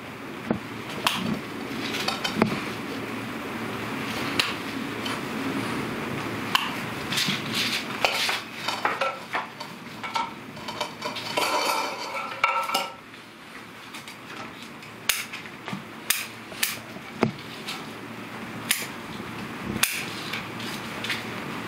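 Irregular clinking and knocking of hard objects being handled. It is busiest as a clattering run in the middle, then settles into a few separate sharp knocks near the end.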